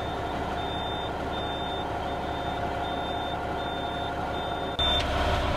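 A heavy truck's low air pressure warning buzzer beeps steadily, about one high beep every three-quarters of a second, over the idling truck engine. The beeping means the brake system's air pressure is still below the warning level, around 60 PSI, while the engine builds air. Near the end the beeping stops and the engine gets louder.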